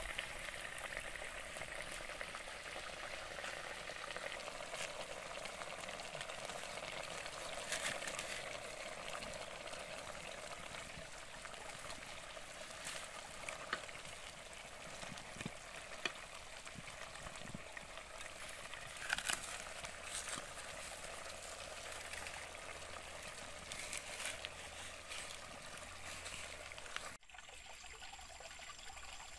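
A pot of stew boiling hard over a wood fire: a steady bubbling hiss with scattered sharp pops. It drops suddenly to a quieter background near the end.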